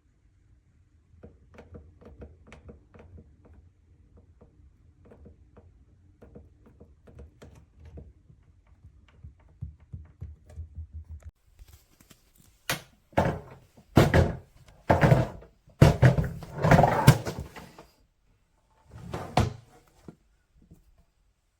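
Faint light ticking over a low steady hum, then a run of about six loud thumps and knocks in the second half.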